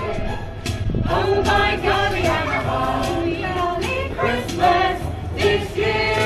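Group of carol singers singing a Christmas carol together.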